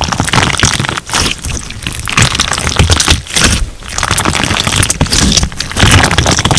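Crunch slime being squeezed and kneaded by hand, giving a dense run of crackles and pops that swell and ease every second or so.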